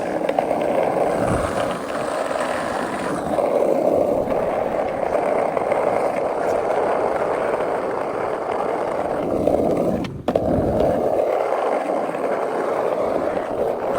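Skateboard wheels rolling fast on pavement while bombing a hill, a steady rushing rumble that briefly cuts out about ten seconds in.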